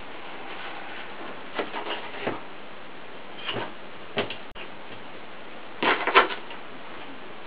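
Small metal pipe fittings and hand tools being handled on a wooden workbench: scattered clicks and knocks, with the loudest clatter about six seconds in as locking pliers are picked up from the table.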